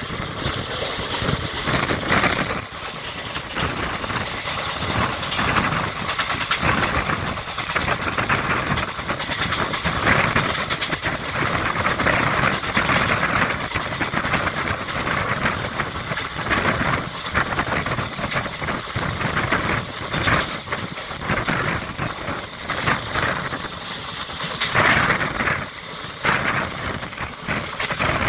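Passenger express train running at speed, heard from onboard: a steady rumble of wheels on the rails with constant rattling and clatter.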